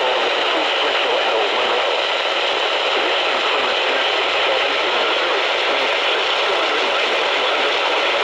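Steady radio static: an even hiss from a radio receiver, with no voice or alert tones.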